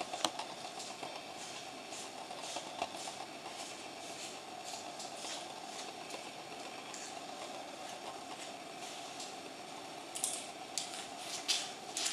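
A grooming brush raking through a dog's thick undercoat in repeated short scratchy strokes, about one or two a second, with a few louder scrapes near the end, over a faint steady hum.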